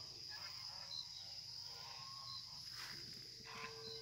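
Steady high-pitched insect chirring, with short bird chirps and calls over it and one held whistle-like note near the end.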